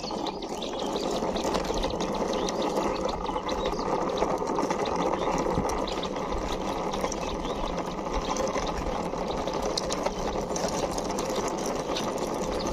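Plastic toy car pushed by hand along rough concrete, its wheels rolling and grinding in a steady whir with faint fine clicks.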